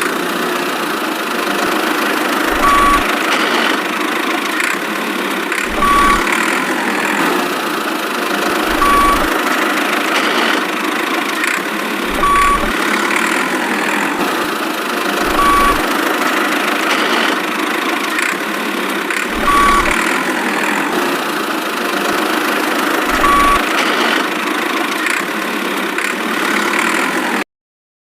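Steady engine-like rumble with a short high beep about every three seconds, cutting off abruptly near the end.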